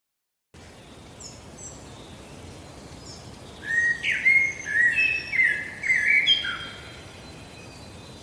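Small birds chirping and singing over a steady background hiss. A run of loud, quick whistled notes comes in the middle, with fainter high chirps before and after.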